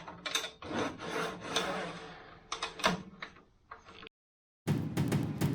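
Irregular scraping and rubbing on wood with a few sharp clicks, which stops abruptly about four seconds in. Music with a steady beat starts near the end.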